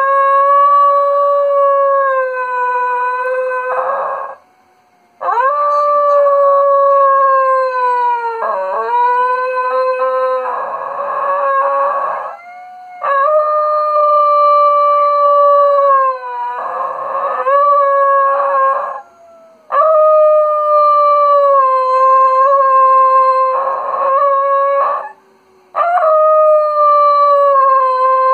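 Schnoodle (schnauzer–poodle cross) howling: a series of long, drawn-out howls, each lasting several seconds and sagging slightly in pitch at the end, with short breaks between them.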